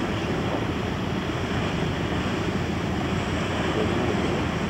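Steady noise of wind on the microphone and choppy sea water, a constant rumble strongest in the low end, with no distinct events.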